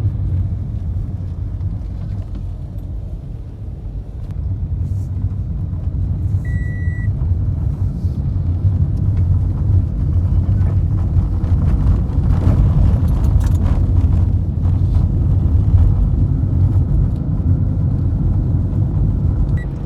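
Car driving along a road, heard from inside: steady engine and tyre rumble, rising a little in the second half. A short high beep sounds about six and a half seconds in.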